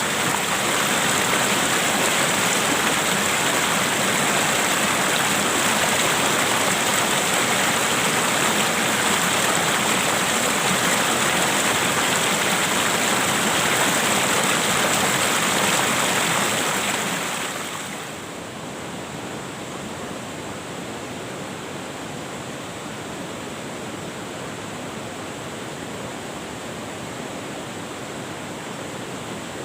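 Steady rush of flowing river water. About seventeen seconds in it falls clearly softer and carries on evenly at the lower level.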